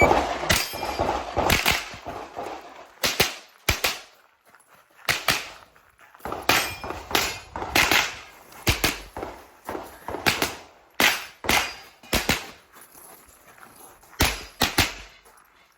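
Semi-automatic .22 LR rimfire rifle firing a long string of sharp shots, some in quick pairs and short runs, with brief pauses between groups as the shooter moves between targets.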